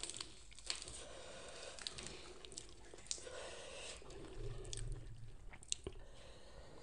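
Faint, close-miked eating sounds: scattered crisp crackles and clicks as fresh lettuce leaves are torn and handled over the salad, with soft chewing.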